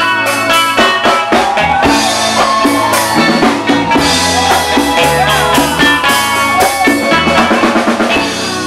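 Live band music driven by congas and a drum kit, with a busy rhythm of drum strokes and melodic lines bending over it.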